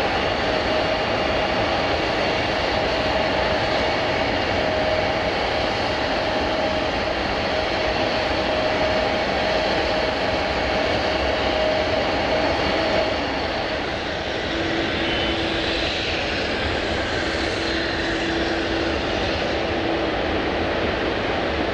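Jet airliner engines running, a steady rushing noise with a held whine. About two-thirds of the way through the whine stops, and a lower steady hum takes over a second or so later.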